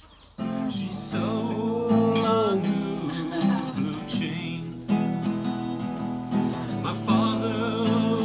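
Acoustic guitar being strummed with a man singing along, starting abruptly about half a second in.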